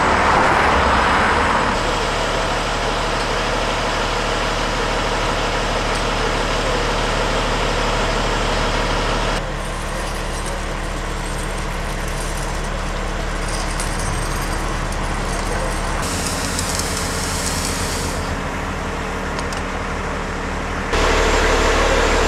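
A fire engine's diesel engine idling steadily, with a brief hiss about two-thirds of the way through.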